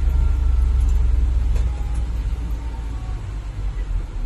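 Low, steady rumble of a vehicle heard from inside its cab as it moves slowly in traffic, easing off a little about two seconds in.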